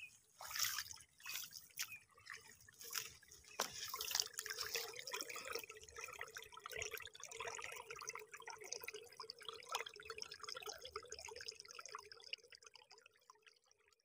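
Shallow water trickling and dripping over rocks and gravel, with a few splashes of bare feet stepping through it in the first few seconds; the trickle then runs steadily and fades out near the end.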